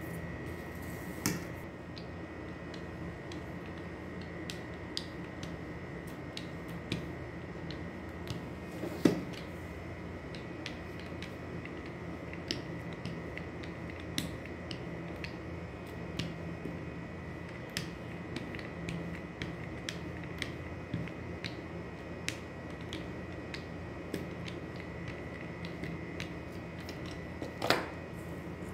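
Small rolling pin being worked back and forth over dough on a plastic table mat: scattered faint clicks and taps, with louder knocks about a second in, around nine seconds in and near the end, over a steady background hum.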